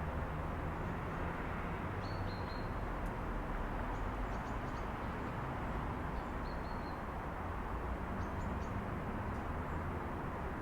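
Steady hum of city traffic heard through an open apartment window, with a few short, high bird chirps scattered over it.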